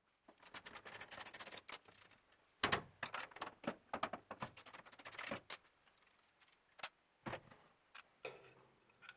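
Socket ratchet wrench clicking in quick runs as it undoes a bolt holding a sheet-metal interlock switch box, followed by a few scattered clicks and knocks of the metal box being handled.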